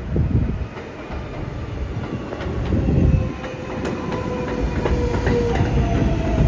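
New York City Subway 4 train running on the rails: a low rumble with sharp clacks from the wheels, and a thin whine that slowly falls in pitch.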